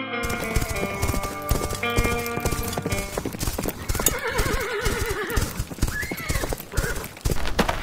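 Horse hooves clip-clopping, with a horse whinnying about four seconds in. A music cue fades out in the first couple of seconds.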